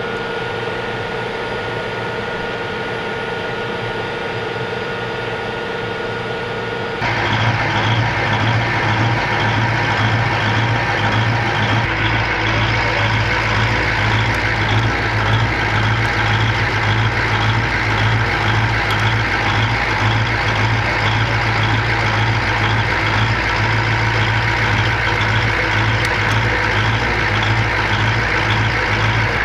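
An armored vehicle's engine idling steadily, a constant low hum that gets louder about seven seconds in.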